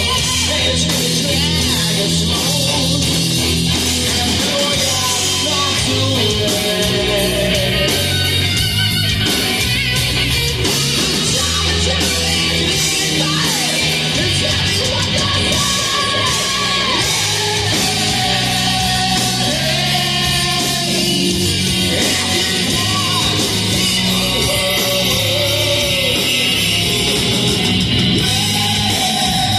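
Hard rock band playing live at full volume: a singer over distorted electric guitar, bass and drums, with steady bass notes under the vocal line.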